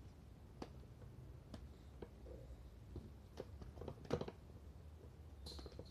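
Faint, scattered soft slaps and clicks of marinated meat slices being pressed down onto a vertical trompo spit, over a low steady background hum.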